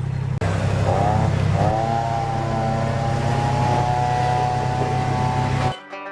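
2004 Kubota BX23D's three-cylinder diesel engine running after mowing, left to run so it cools down. Its pitch climbs between about one and two seconds in, then holds steady until the sound cuts off near the end.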